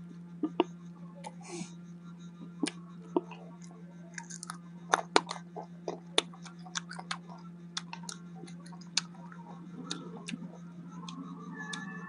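Close-up mouth sounds of chewing green mango and anchovies: sharp, irregular wet clicks and crunches, sometimes several a second, over a steady low hum.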